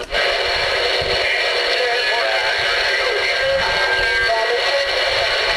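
CB radio receiver with no one answering: a loud, steady hiss of static ("hiss and trash") on the open channel, with faint warbling, garbled voices and whistles bleeding through.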